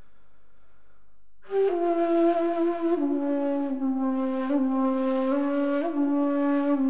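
A ney, the end-blown reed flute of Sema music, comes in loud about a second and a half in, playing a breathy, slow melody of long held notes that steps downward.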